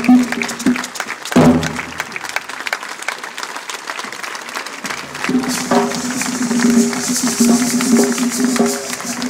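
Live Colombian folk music from a small stage band, with held wind-like notes. It breaks off about a second and a half in and starts again about five seconds in. A crowd applauds over the second half.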